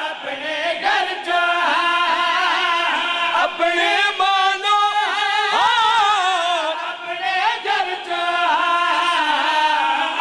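Several men singing a qasida chorus together into a microphone, in held, wavering notes.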